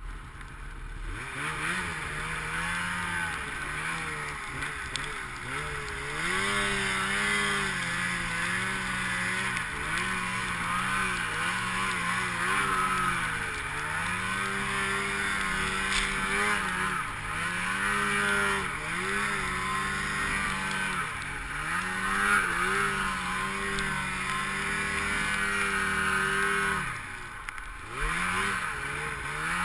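Snowmobile engine running under throttle through deep powder snow, its pitch rising and falling again and again as the throttle is worked, with a brief easing off near the end.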